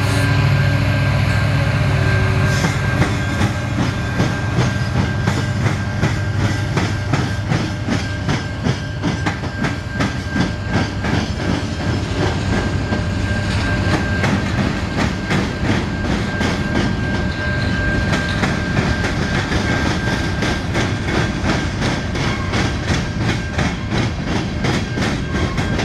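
Freight train passing close by: a low diesel locomotive hum in the first couple of seconds gives way to the steady clickety-clack of railcar wheels over rail joints, with a thin steady whine above it.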